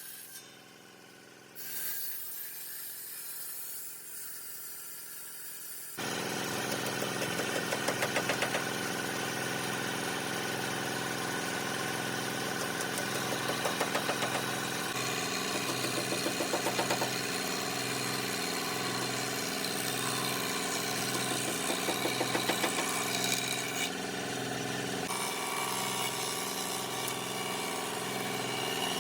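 A motor-driven machine running steadily, with a low pulsing hum and short bursts of rattling; the sound changes abruptly several times.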